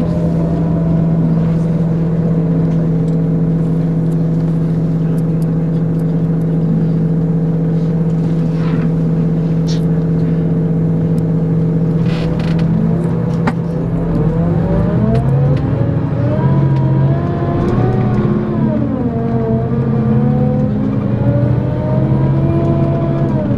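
Scania K410EB6 coach's straight-six diesel running at steady revs for about twelve seconds, then pulling harder: the revs climb, drop back at a gear change, and climb again near the end. A few light clicks sound during the steady stretch.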